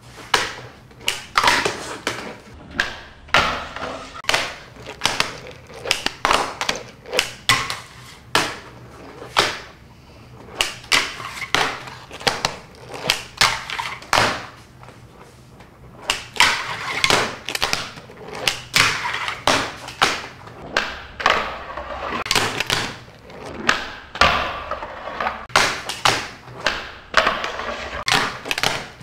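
Handboard (a hand-sized skateboard) doing flip tricks on a tabletop. The deck clacks sharply again and again as it pops and lands, and between the clacks come stretches of wheels rolling and grinding or sliding along a small ledge.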